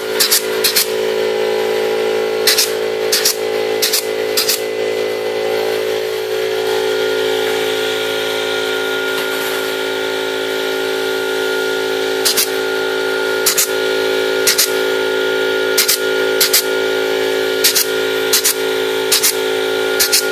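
Pneumatic clip gun firing clips onto the wire mesh of a chicken cage: sharp snapping clicks, often in quick pairs, with a pause of several seconds in the middle. A steady hum runs underneath.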